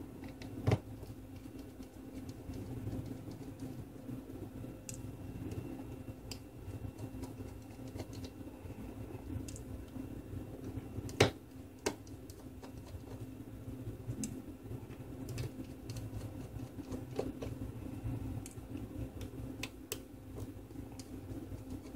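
Small screwdriver backing screws out of an LG Viper phone's rear housing, with light clicks and ticks of metal on metal and handling of the phone. Two sharper clicks stand out, one near the start and a louder one about 11 seconds in, over a steady low hum.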